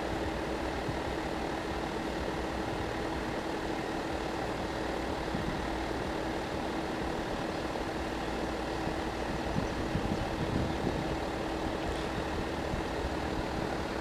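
Steady engine hum with a constant tone, unchanging throughout.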